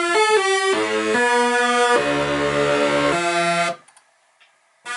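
Software synthesizer preset from Steinberg's HALion 3 Hypnotic Dance library played from a keyboard: a quick run of short notes, then a series of held chords with many overtones. It cuts off suddenly about three-quarters of the way through and sounds again at the very end.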